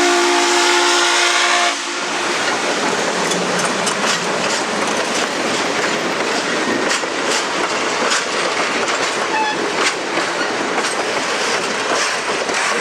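A steam locomotive whistle sounding a chord over a hiss of steam, cutting off suddenly under two seconds in; then a train rolling past with a steady rumble and the quick clicks of wheels over rail joints.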